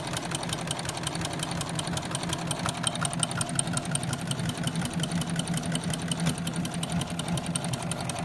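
Domestic sewing machine running steadily at speed in a fast, even rhythm, its needle stitching through two layers of denim while an overlock presser foot's side blade trims the fabric edge.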